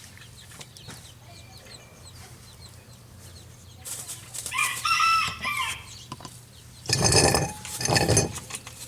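A rooster crows about four seconds in, a long call that rises and falls. Near the end come two loud, noisy bursts of sound.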